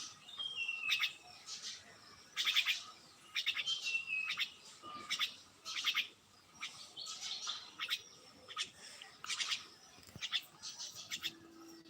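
Small birds chirping in quick repeated bursts, with two short falling whistled notes among them.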